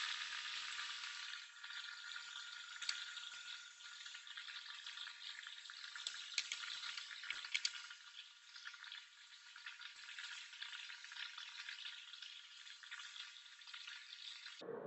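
Paper towel crinkling and rustling in the hands as it is folded and rolled around a graphite cathode rod, a faint, continuous crackle with small sharp clicks. A faint steady tone runs underneath.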